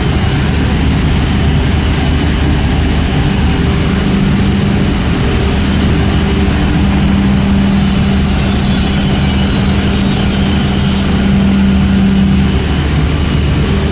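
Glass tempering furnace line running with a loud, steady machine hum. About eight seconds in, a high hiss joins for about three seconds.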